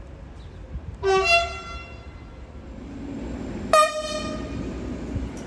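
Spanish train horn: two quick toots about a second in, then a single louder, sharper blast near four seconds, over the low rumble of a train that grows from about three seconds.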